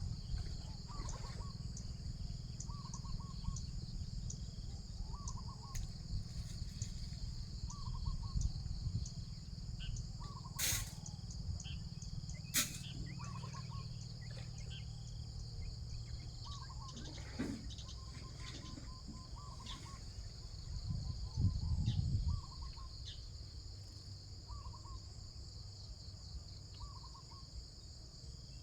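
A steady high-pitched insect chorus, with a bird giving the same short call over and over about every two seconds. Under it is a low rumble that swells briefly about three-quarters of the way in, and two sharp clicks come near the middle.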